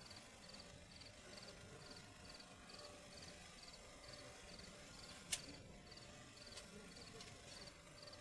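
A cricket chirping faintly and steadily, about two short pulsed chirps a second. A single sharp click about five seconds in.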